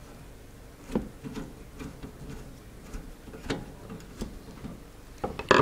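Scattered small metal clicks and scrapes of a screwdriver turning a screw in a car amplifier's speaker terminal block, clamping down the speaker wire, with a sharper pair of clicks near the end.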